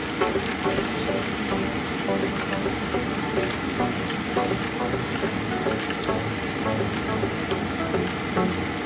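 Pork in coconut sauce sizzling and bubbling steadily in a nonstick frying pan, with many small crackles. Near the end, chilies are stirred through it with a silicone spatula.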